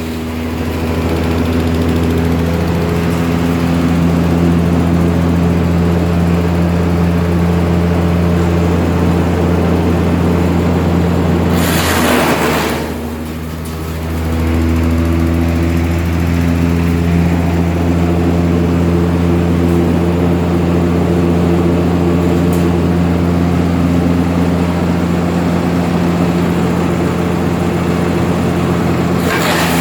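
Wood chipper's engine running steadily with a constant low hum. About twelve seconds in there is a brief burst of noise, then the running dips for a second or two and picks back up.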